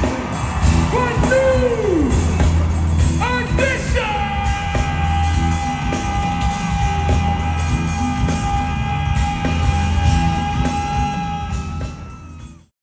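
Live R&B band playing a closing vamp, with steady bass and drums. Sung ad-libs slide downward, then a single high note is held for several seconds from about four seconds in. The music drops away and cuts off abruptly near the end.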